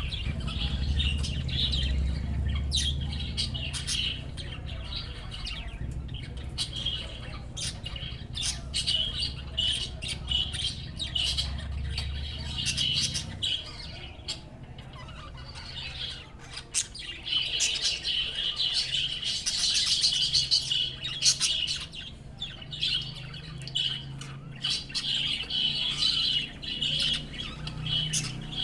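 Budgerigars chattering and warbling: a continuous stream of quick chirps and squawks, busiest about two-thirds of the way through, over a low hum.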